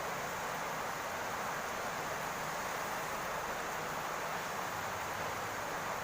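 Steady rain falling on a roof, an even hiss with no separate drops standing out.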